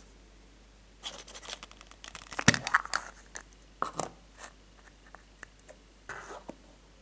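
A hollow plastic surprise egg clicking and scraping in the hands as it is twisted open, with a sharp snap about two and a half seconds in as the two shell halves pop apart. A few lighter plastic clicks and a short rustle follow as the small toy figure is handled.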